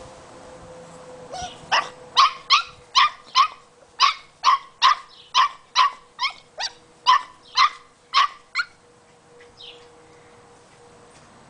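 Rubber squeaky toy squeaking under a boxer puppy's bite: a run of about sixteen short squeaks of the same pitch, two to three a second, stopping about three seconds before the end.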